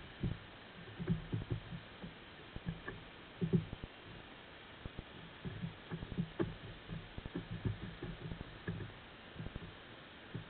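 Underwater recording from a submerged trap camera: irregular soft low knocks and thuds, several a second in clusters, over a steady hiss.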